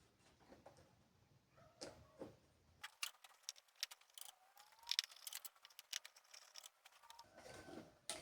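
Faint, irregular clicks and taps of a tractor instrument cluster panel and its small parts being handled, busiest through the middle, with a brief faint squeak.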